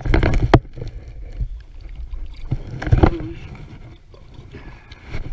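Knocks and bumps against an aluminium boat's hull and deck as gear and the fish are handled. They are loudest in a cluster at the start and again about three seconds in, over a low rumble.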